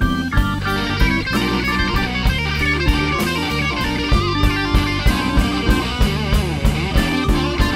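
Live rock band playing an instrumental passage, with electric guitar over bass and a drum kit keeping a steady beat.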